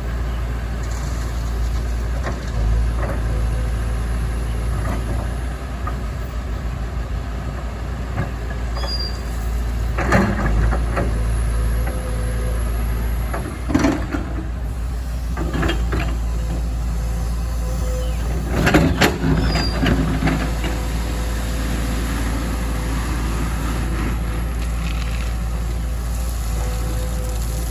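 Excavator's diesel engine running steadily, with intermittent clanks and rattles as it works, the loudest about ten, fourteen and nineteen seconds in.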